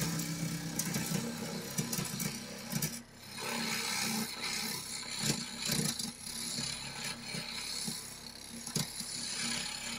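A bowl gouge cutting a spinning wooden bowl blank on a wood lathe: a continuous scraping hiss of shavings coming off, over the lathe's steady low hum, with scattered short knocks. The cut eases off briefly about three seconds in.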